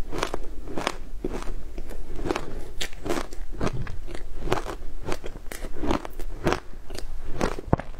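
Crushed ice coated in matcha powder being chewed, a steady run of crisp crunches about two a second, picked up close to the mouth.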